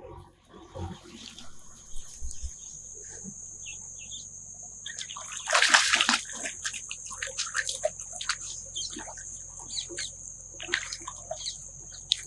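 Water splashing and sloshing, with scattered clicks and knocks and one loud splash about six seconds in, over a steady high-pitched drone.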